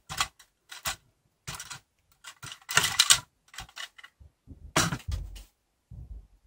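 LEGO Technic plastic parts clattering as the skip container's plastic chains are unhooked by hand and the container is lifted off the truck and set down. It is a run of irregular clicks and knocks, loudest about three and five seconds in.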